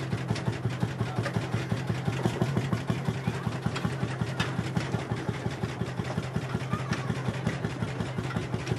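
Vintage tractor's engine running with an even, pulsing beat while the tractor drives slowly.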